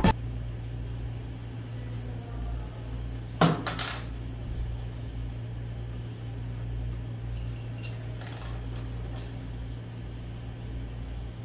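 Small metal parts clinking and clattering as they are handled: a sharp cluster of clinks about three and a half seconds in, then a few lighter clicks around eight to nine seconds, over a steady low hum.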